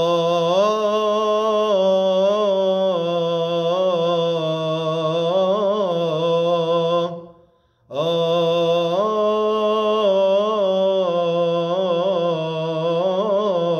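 A man hums a wordless melody in maqam Ajam on F (the jaharka position), in two long held phrases with wavering ornaments and a short breath between them about halfway through.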